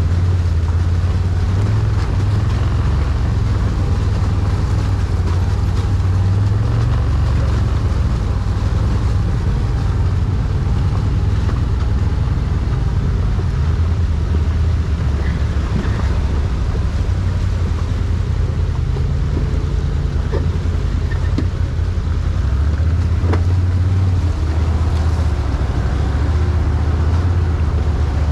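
ATV engine running at low revs with a steady low drone that shifts in pitch now and then, with a few faint clicks.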